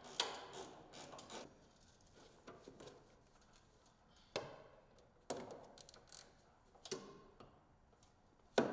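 Hand tool clicking and ticking against the snowmobile chaincase cover fasteners as they are loosened, in short separate clicks a second or so apart.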